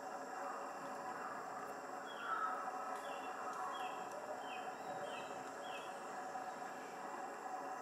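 A bird calls a series of six short, high notes, each falling in pitch, about two a second, starting about two seconds in. A steady natural background hum runs underneath.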